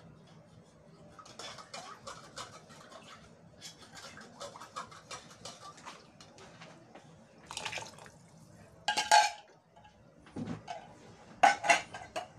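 Kitchen dishes and utensils clattering and clinking in scattered knocks, with two louder clashes about nine seconds in and near the end.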